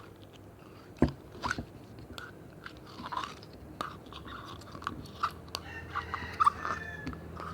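Homemade slime being squeezed and worked by hand, giving irregular sticky clicks, pops and crackles.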